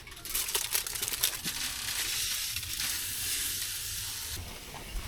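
Tomahawk steak sizzling as it cooks, a steady frying hiss with a few crackles near the start that eases about four seconds in.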